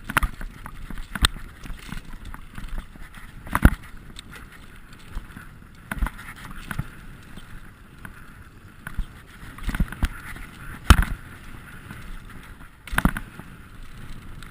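Mountain bike ridden over rough trail: a steady rush of tyre and wind noise broken by frequent knocks and rattles as the bike hits bumps, the sharpest about 4 s and 11 s in.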